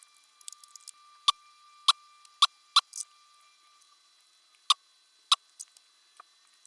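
Sharp clicks and taps of small hard parts being handled in hand work: six loud ones spread over the first five seconds or so, with fainter ticks between them.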